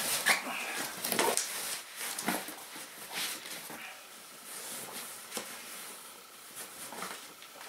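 Irregular rustling and scuffing of a closed-cell foam sleeping pad (Therm-a-Rest Z Lite) and a woven Mexican blanket being handled, spread and tucked over a camping cot.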